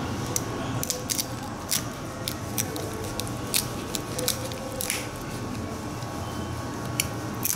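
A knife working through raw fish on a wooden cutting board as the pieces are handled and pulled apart, giving irregular sharp clicks and taps. A steady low hum runs underneath.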